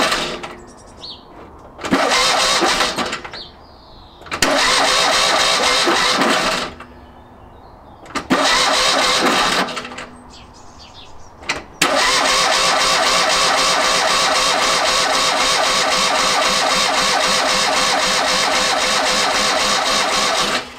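Freshly rebuilt Fiat 500 F 499cc air-cooled two-cylinder engine being started for the first time: several short bursts of starter cranking with pauses between them while fuel comes through to the carburettor. About twelve seconds in it catches and runs steadily.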